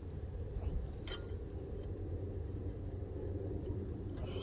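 Steady low background rumble, with a light click about a second in as the brake caliper and pad parts are handled.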